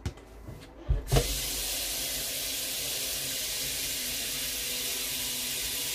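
Two short knocks, then a kitchen tap running steadily, water pouring into a sink or bowl.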